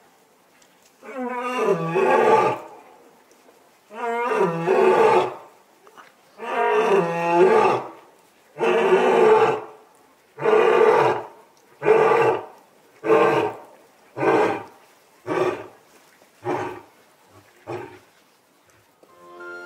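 Male lion roaring: a bout of about eleven calls, the first few long and full, then shorter grunts coming closer together and fading away near the end.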